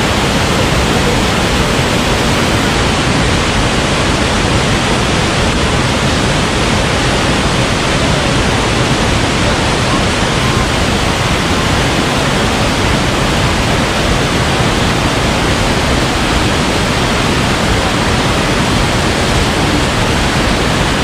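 A waterfall and boulder-strewn mountain stream rushing, with white water cascading over rocks into a pool: a loud, steady roar of water.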